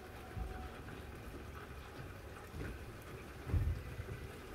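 Steady rainfall heard through a closed window, an even hiss of rain, with a couple of low thumps; the louder one comes about three and a half seconds in.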